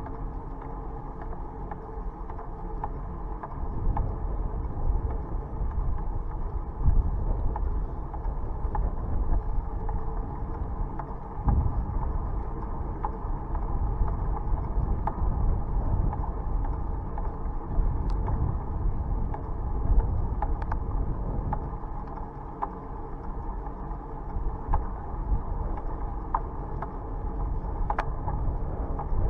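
Bicycle on the move: a steady rumble of tyres and wind that swells and falls, with the chain and drivetrain running and scattered sharp clicks and rattles.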